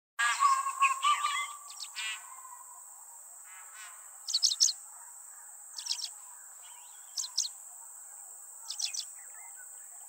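Wild forest birds calling over a steady, high-pitched insect drone. In the first two seconds several calls overlap, then one bird repeats a short call about every one and a half seconds.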